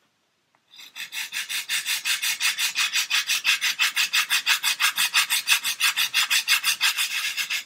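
Coarse abrasive on a sanding block scraped rapidly back and forth along the edge of a wooden model-ship false keel, about six strokes a second, starting about a second in. It is taking material off quickly to taper the keel, and the non-clogging coarse abrasive cuts fast.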